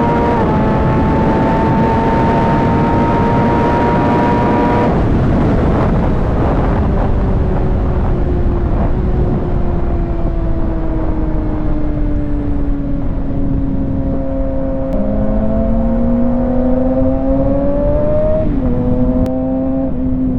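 Kawasaki ZX6R 636's inline-four engine under way with wind rush: revs climb slowly in one gear, then fall off about five seconds in and sink steadily for several seconds as the throttle is eased. Near the end the revs rise again and then step sharply in pitch.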